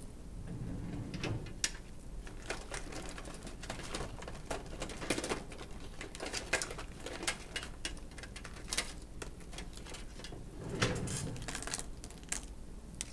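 Irregular light clicks, taps and scratches, like small objects being handled on a desk, with a low muffled rumble twice.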